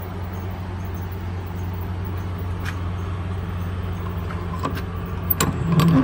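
Steady low hum of the Toyota Hilux idling. In the last second a few sharp metallic clicks and a brief clatter come from the refrigerated box's rear door latch being worked.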